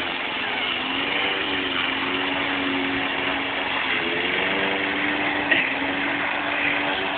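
Petrol push lawn mower engine running steadily, its pitch wavering a little.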